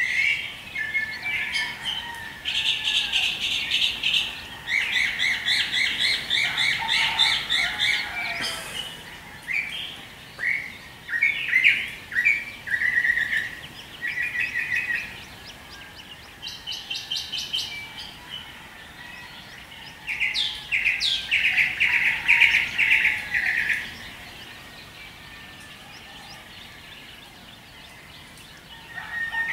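Several songbirds singing in a dawn chorus: quick, repeated chirping trills overlapping one another. The birds fall quiet for a few seconds near the end.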